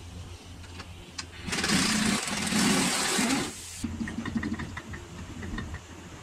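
A power wrench runs for about two seconds, backing out a top mount bolt. Then comes a quick run of light clicks, about six a second.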